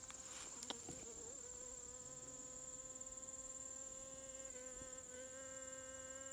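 A flying insect buzzing close by, its hum steady with a slight waver in pitch, over a constant high-pitched drone of an insect chorus. A single light tick just under a second in.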